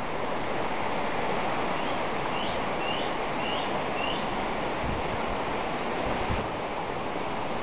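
Steady rustle of a breeze through leafy garden trees. A small bird gives five short chirps, about two a second, starting about two seconds in.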